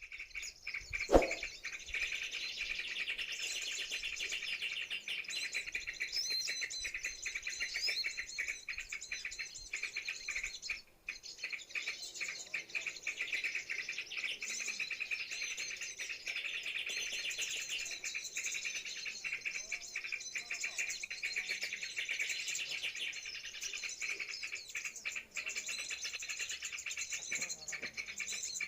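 Small birds chirping and twittering continuously in a dense, overlapping chorus, with a single short thud about a second in.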